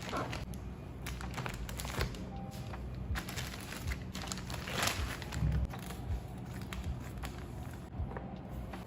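Crinkling packaging and light taps and clicks as an iPad box and accessories are unboxed, over faint background music.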